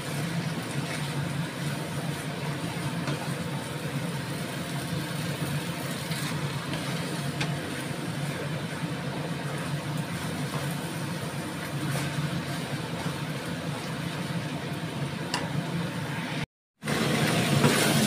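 Glass noodles stir-frying in a non-stick pan, a steady frying hiss over a constant low mechanical hum, with a few light knocks of the wooden spatula against the pan. It drops out briefly near the end and comes back louder.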